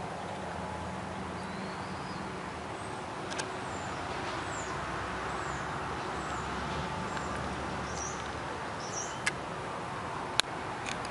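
Outdoor background ambience: a steady low rumble with scattered short bird chirps and a few sharp clicks, the loudest near the end.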